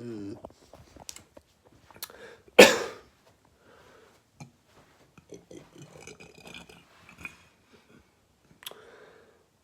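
A short low burp at the start, then a loud sharp sniff about two and a half seconds in, followed by quieter sniffing and breathing.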